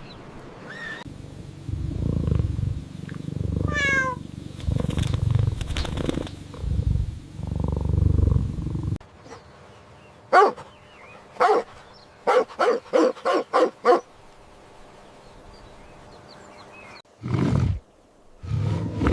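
Animal vocalisations: a low rumbling for several seconds, then a run of about seven short, clear pitched calls, and a brief noisy burst near the end.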